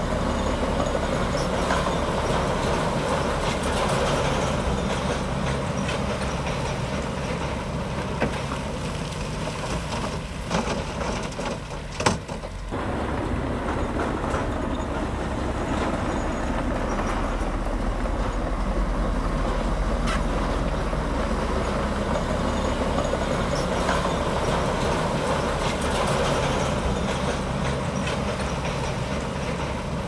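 Komatsu D65P bulldozer's diesel engine running steadily under load, easing off briefly a little before halfway, with a single sharp knock.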